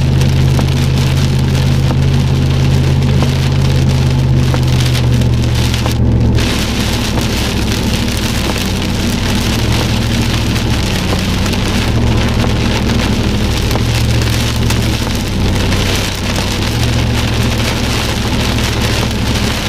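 Heavy rain beating on a moving car's windshield and body, over the steady low drone of the car on the road; the drone shifts in pitch several times.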